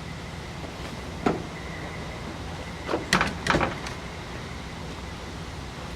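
Clicks and metal knocks from handling the car door of a 1969 Cadillac Eldorado: one sharp knock about a second in, then a quick run of clunks around three seconds in, over a steady low hum.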